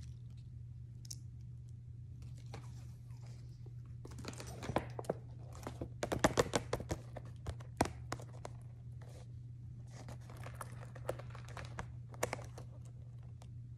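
Stiff clear plastic packaging crinkling and crackling as it is handled, in irregular clusters, loudest about six seconds in and again briefly near the end.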